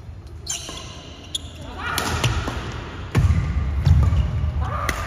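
Badminton rackets striking a shuttlecock during a doubles rally, sharp hits about a second apart, with sneakers squeaking on the court floor and heavy footwork thuds growing louder a few seconds in.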